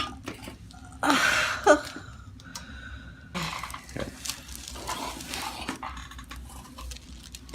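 A person breathing out hard twice, with a short voiced sound in the first breath, and a few light clicks of handling.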